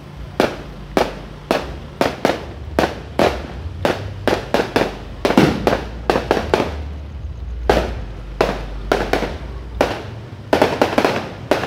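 Fireworks going off in a rapid, uneven series of sharp bangs, about two a second, each trailing off in a short echo, with denser volleys about halfway through and near the end.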